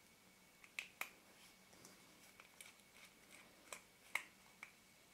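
Faint, scattered clicks and light taps from the parts of a small camera lens being handled with the fingers during disassembly. There are about a dozen, the loudest a little after four seconds in, against near silence.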